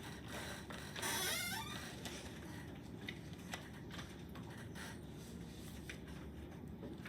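Quiet room with scattered light clicks and a brief scrape about a second in.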